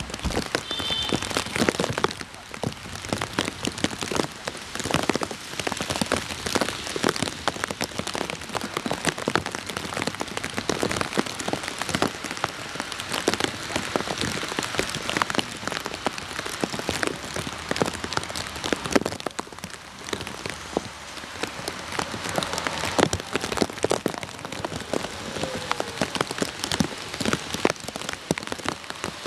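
Rain falling, heard as a dense, irregular patter of close, sharp drop impacts.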